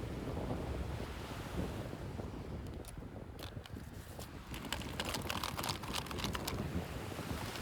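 Toy packaging handled close to the microphone: a low rustling rumble, then a run of sharp plastic crackles and clicks from about two and a half seconds in.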